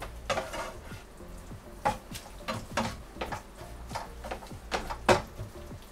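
A utensil stirring a tomato curry sauce in a frying pan on the stove, with irregular scrapes and clicks against the pan and a sharper knock about five seconds in. A light sizzle of the simmering sauce is underneath.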